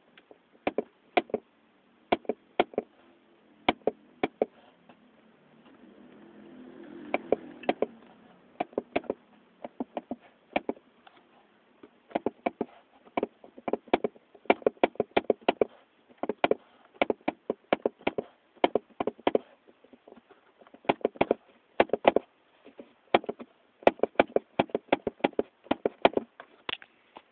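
Sharp, irregular clicking rattle, often in quick clusters, from the A-pillar trim of a 2010 Volkswagen Golf Plus as the car drives over a bumpy road surface, heard inside the cabin. The rattle comes from a trim retaining clip that was not fitted in its mounting position.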